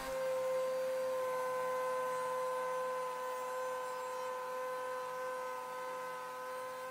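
Router motor on a PantoRouter joinery machine running with a steady high whine while a small test rabbet is cut in a wooden piece; the pitch sags slightly as the cut is fed.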